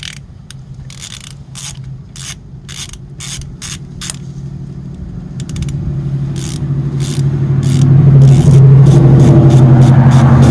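Hand ratchet wrench clicking in repeated strokes as a bolt is undone, here the bolt holding the oil pump chain tensioner. The strokes speed up to about four a second in the second half. A steady low hum rises from about six seconds in and becomes the loudest sound.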